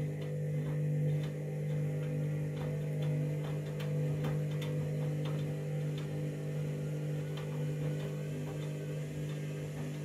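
Candy front-loading washing machine turning a load of wet bedding slowly, its motor giving a steady hum with light irregular ticks. The machine is trying to balance the load and is refusing to go into its final spin.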